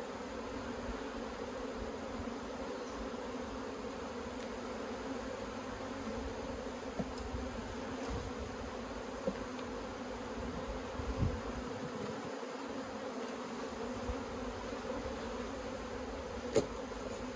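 Honeybee colony humming steadily around an opened brood box during a hive inspection, with a few light knocks scattered through.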